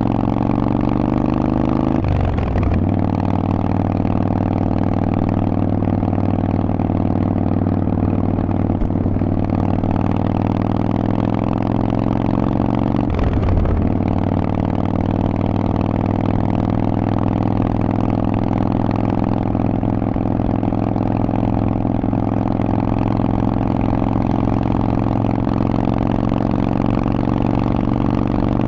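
Harley-Davidson Sportster Forty-Eight's 1200 cc V-twin through a Vance & Hines aftermarket exhaust, riding under load. The engine pitch climbs, with short breaks for upshifts about two seconds in and again around thirteen seconds, each dropping the pitch. After that it holds a steadier note that rises slowly.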